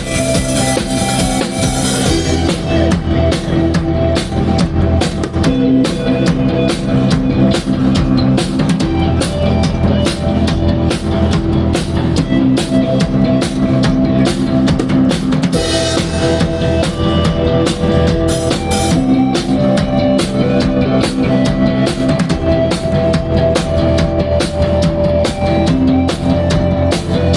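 A live band playing during a sound check: a drum kit keeps a steady beat of kick and snare under held bass and chord notes, with cymbal crashes at the start and again about halfway through.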